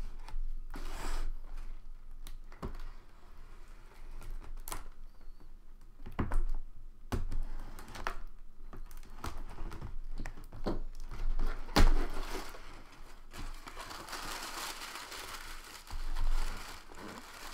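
Cardboard box and plastic packaging being handled and opened by hand: scattered taps and knocks, then several seconds of crinkling near the end.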